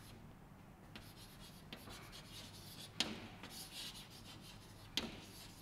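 Chalk writing on a chalkboard: faint scratching strokes, with two sharp clicks about three and five seconds in.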